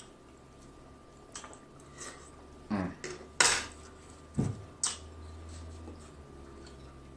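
Metal fork clinking and clattering against dishes and food containers: a handful of short, separate clicks spread over several seconds.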